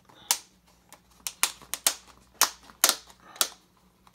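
Plastic deli cup lid being prised off by hand: a run of irregular, sharp plastic clicks and snaps.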